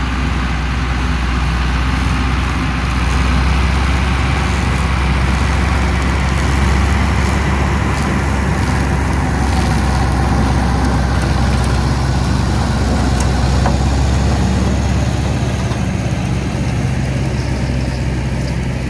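Ursus C-385 tractor's diesel engine running steadily under load, driving an Orkan 2 flail harvester that is cutting grass, the rotor and knives adding a dense whirring hiss over the engine's low drone.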